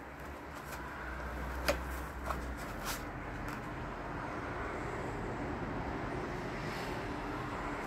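Plastic drone and hard case being handled in the foam insert: three short clicks, a couple of seconds in, over a steady background rumble that grows a little louder.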